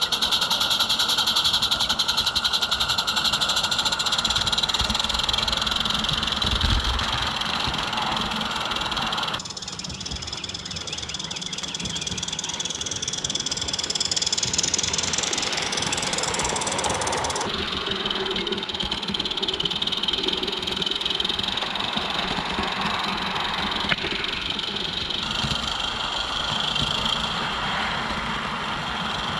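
Small live-steam garden-railway locomotive running along the track with a fast, even beat, pulling a short goods train. A single sharp click comes about three-quarters of the way through.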